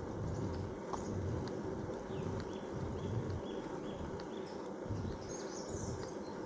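Bicycle riding along a road: tyre rolling noise and a low rumble with a rhythmic pulse, with faint bird chirps about halfway through.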